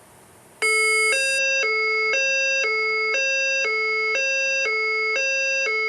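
Fire alarm voice-evacuation speakers sounding their alert signal tone, which marks a reported event in the building. Two pitches alternate low-high, each held about half a second, starting about half a second in.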